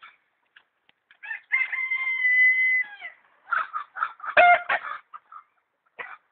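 Rooster crowing once, a held note lasting about a second and a half, followed by a run of short, loud clucks and squawks.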